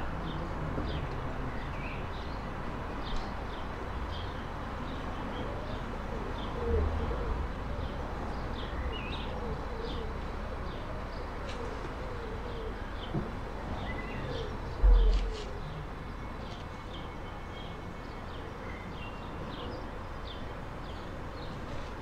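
Garden birds chirping with short high calls throughout, and a pigeon cooing softly in the middle stretch. A couple of brief low bumps, the loudest about two-thirds of the way in.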